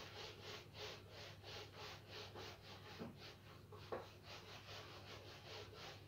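A whiteboard eraser rubbed quickly back and forth across a whiteboard, a faint scratchy swish about three to four strokes a second, with two brief knocks a little after the middle.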